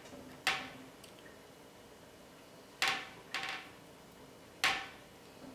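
Four sharp knocks of a kitchen utensil on the work surface, unevenly spaced, as ravioli are cut and crimped from pasta scraps.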